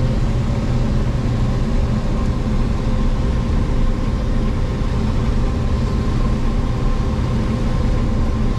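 Combine harvester running steadily while harvesting corn: a constant low engine and machinery drone with a faint steady whine above it.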